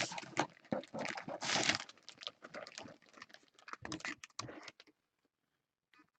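Rapid, irregular clicking and rustling that stops about five seconds in.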